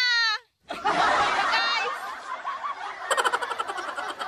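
A goat bleats at the very start, cut off short; then a group of people chatter and laugh, with a quick stuttering laugh about three seconds in.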